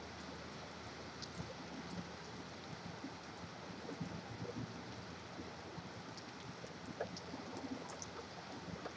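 Steady rain with the even wash of highway traffic, scattered small drip ticks, and a faint low steady hum underneath.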